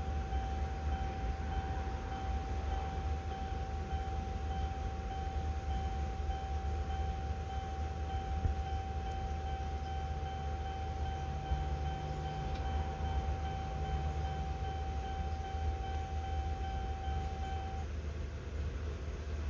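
Car's dashboard warning chime sounding as a steady tone with quick repeating pulses, stopping abruptly near the end, over the steady low hum of the car's ventilation blower.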